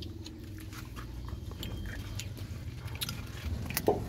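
A dog biting and chewing on a grilled chicken drumstick held in a hand: scattered soft crunches and wet clicks of meat and bone, one louder near the end, over a low steady hum.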